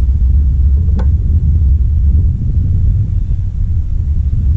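Wind buffeting the microphone: a steady low rumble, with a single sharp click about a second in.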